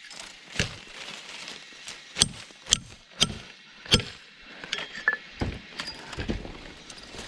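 A series of sharp, irregular knocks: five strong ones in the first four seconds, then softer, quicker ones.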